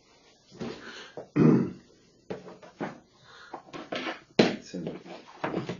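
Steel pliers and hands working in a pot of gritty bonsai substrate: a run of short, sharp scrapes and clicks, with one brief low throat sound about a second and a half in.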